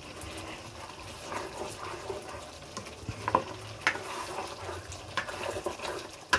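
Thick chicken karahi masala bubbling and frying in a non-stick karahi as a spatula stirs it, with a few sharp clicks and scrapes of the spatula against the pan. The masala is being fried down until the oil separates.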